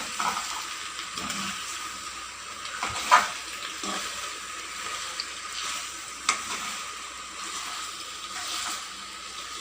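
Pasta and vegetables in sauce sizzling gently in a pan while being stirred, with a utensil knocking against the pan twice, about three and six seconds in.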